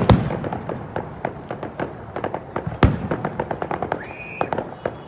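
Fireworks display: dense, rapid crackling from bursting shells, with a big bang at the start and another about three seconds in.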